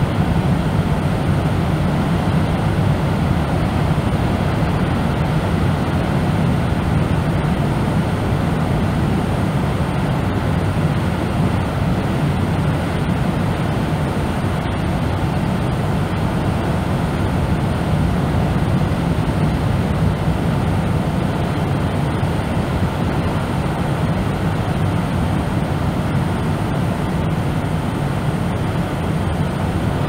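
Steady deep-bass brown noise, billed as the beach heard from indoors: an even, unbroken low noise that is dull in the treble, with no rise and fall of single waves.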